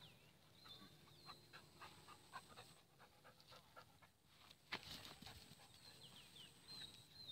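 Faint dog panting with short high whines, a run of light clicks in the first few seconds and one sharper knock about five seconds in.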